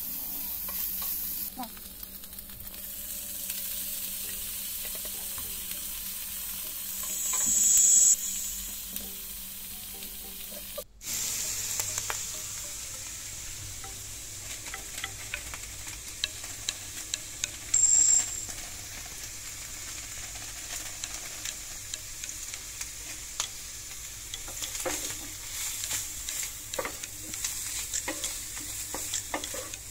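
Garlic longanisa, garlic and sliced mushrooms sizzling as they fry in oil in a nonstick pan, with a wooden spatula scraping and tapping the pan as they are stirred. A brief high-pitched tone sounds twice.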